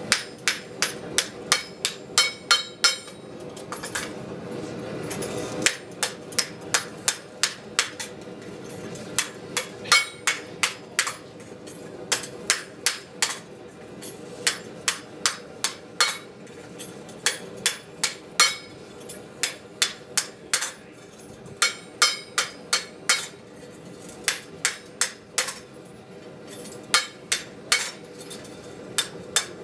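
Blacksmith's hand hammer striking the bowl of a forged frying pan, about two to three blows a second in runs with short pauses, each blow ringing metallically.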